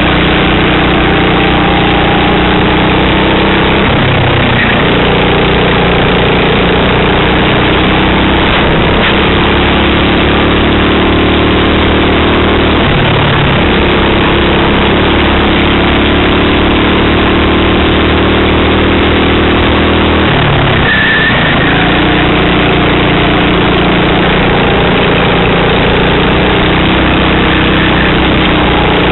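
Racing kart engine heard onboard at full race pace, running at high revs on the straights. Its pitch drops sharply three times, about 4, 13 and 21 seconds in, as the kart brakes into corners, then climbs again as it accelerates out.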